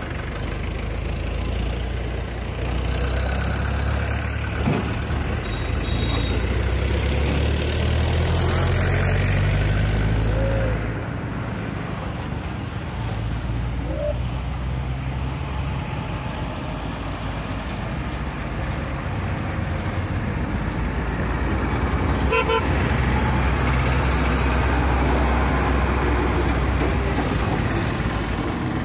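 A motor vehicle engine running steadily with road traffic noise, and a few short horn toots.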